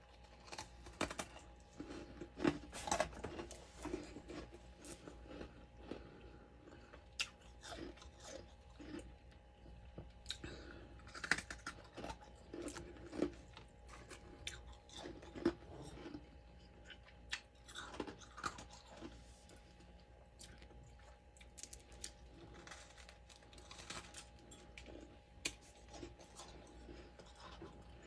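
A person biting and chewing chunks of freezer frost: irregular, crisp crunches close to the mic, recorded at a low level.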